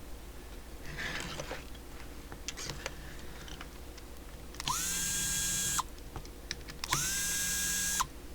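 Small power screwdriver run twice in short bursts of about a second each, its motor spinning up to a steady whine and winding down each time. Light clicks of small parts being handled come before.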